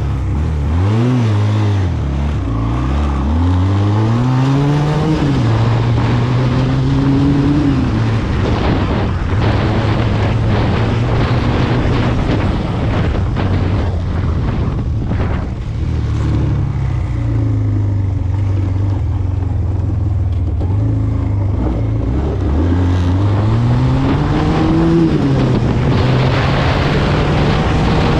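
SMC Barossa 250 quad's engine running on the move, the revs climbing over the first few seconds, holding steady, then dropping and climbing again near the end, over a steady rushing noise.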